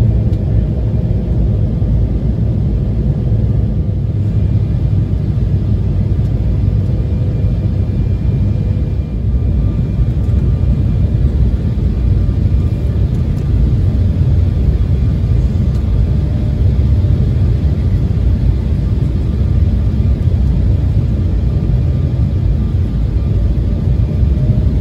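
Cabin noise inside an Embraer E175 regional jet descending on approach: a steady low rumble of airflow and the GE CF34 turbofan engines, with a faint steady engine whine above it.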